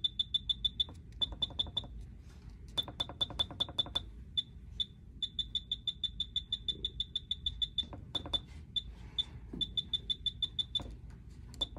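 X-ray generator control panel beeping rapidly, about ten short high beeps a second in runs broken by brief pauses, as an arrow key is held to step the exposure setting up toward 125 kV.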